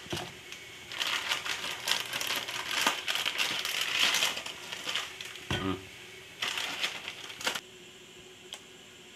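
Crinkly plastic noodle packaging rustling and crackling in quick bursts as it is handled, with one dull knock about halfway through; the crinkling stops about three-quarters of the way in.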